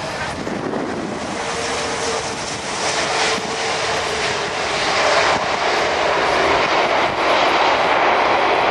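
Jet engine noise from an Airbus A380 on the runway just after landing: a dense, steady rush that grows louder about halfway through and stays loud.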